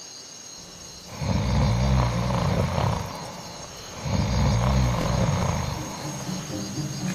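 A man snoring loudly: two long, low, rattling snores, the first starting about a second in and the second about a second after the first ends. Crickets chirp steadily throughout.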